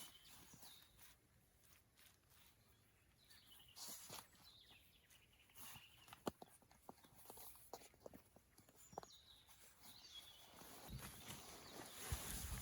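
Near-silent forest ambience: scattered faint clicks and rustles, a few faint high chirps, and some soft thuds near the end.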